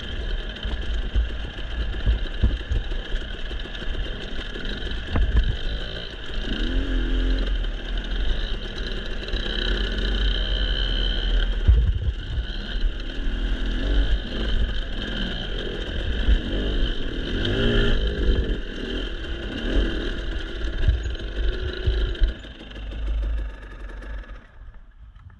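Dirt bike engine revving up and easing off again and again while riding a trail, over a low rumble. The engine sound fades away near the end.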